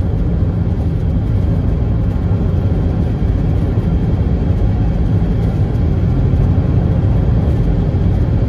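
Steady engine and road noise inside the cab of a moving pickup truck, a continuous low rumble.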